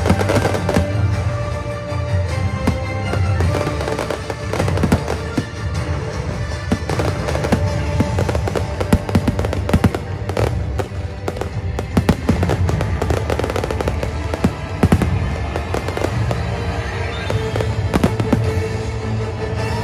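Fireworks display: aerial shells bursting and crackling in a dense, irregular barrage, with music playing throughout.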